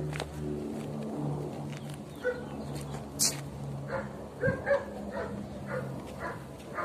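A dog barking and yelping repeatedly in short, sharp calls, with a low steady hum underneath.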